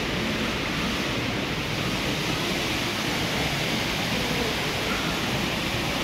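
Indoor floor fountain's many small water jets splashing steadily into its shallow pool, an even rush of water.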